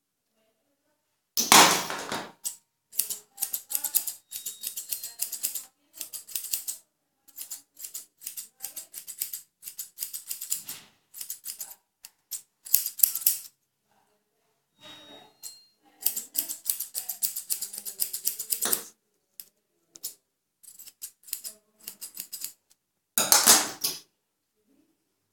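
Grooming scissors snipping a schnauzer's leg hair in quick runs of sharp clicks, broken by short pauses. A louder burst of noise comes about a second and a half in and again near the end.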